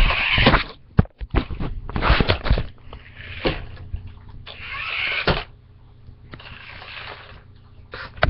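Remote-control stunt car's electric motors whirring in bursts of about a second as it flips and spins on carpet, with a few sharp knocks.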